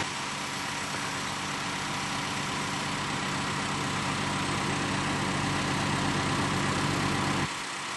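Mobile crane's diesel engine running steadily at a low, even idle. The engine sound drops away sharply near the end.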